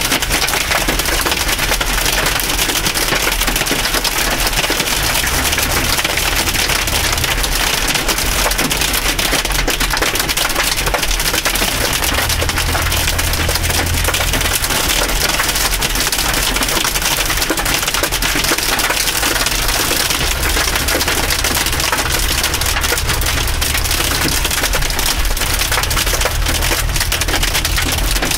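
Hail and rain pelting a car's roof and windshield: a loud, dense, steady clatter of countless small hits, heard from inside the cabin.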